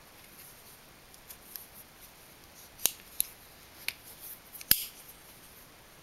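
Metal clicks from an AKC Leverletto lever-lock stiletto being folded shut by hand. A few faint ticks come first, then sharp clicks at about three and four seconds in, with the loudest one near the end.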